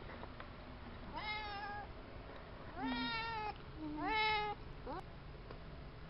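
Domestic cat meowing three times, each call rising in pitch and then held, with a short fourth rising call about five seconds in. The cat is asking to be let outside.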